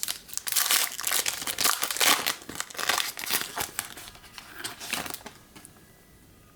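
A Topps Chrome Update Sapphire trading-card pack's wrapper being torn open and crinkled in the hands. The crinkling stops about five seconds in.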